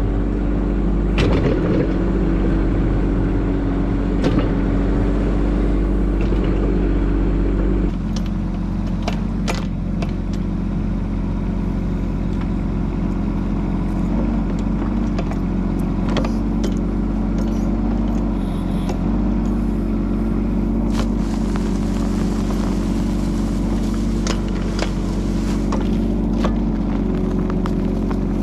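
Bobcat E10 mini excavator's diesel engine running steadily while the bucket digs into the slope, with scattered knocks and scrapes of the bucket against soil, rocks and roots. About eight seconds in the sound drops a little and changes as it is heard from ground level near the bucket instead of from the operator's seat.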